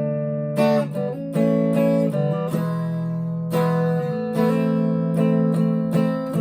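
Harley Benton TE-90 FLT electric guitar with Filtertron-style pickups, strumming chords through a Fender Mustang LT25 amp set clean. A new chord is struck every second or so and left to ring into the next. The tone is darkish and mid-range.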